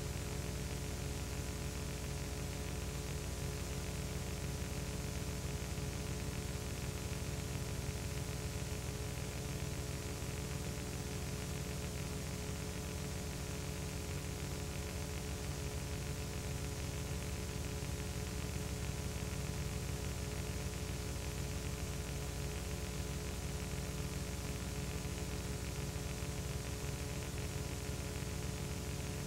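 Steady electrical hum with hiss and nothing else: the empty soundtrack of a silent home-movie transfer.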